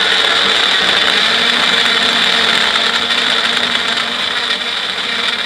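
Personal blender running at one steady speed, blending a smoothie of ice, fruit and almond milk, with a high steady whine over the motor noise.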